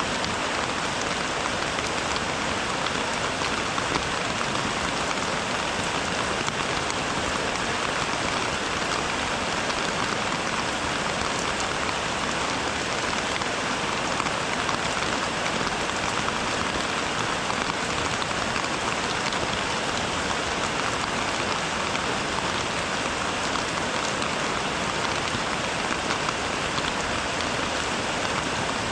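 Steady rain falling, an even hiss of many fine drop impacts that keeps the same level throughout.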